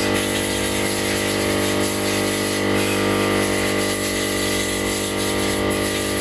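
A machine's motor running steadily at a constant pitch.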